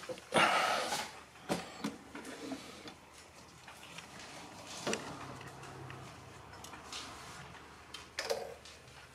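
Handling noises on an antique pendulum wall clock: scattered clicks and knocks, with a louder rustle about half a second in, as the clock's case is handled and its minute hand is pushed round by finger near the end.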